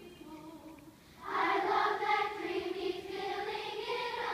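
Large children's choir singing a vocal warm-up exercise on sustained vowel notes. It enters loudly about a second in, after a quieter stretch.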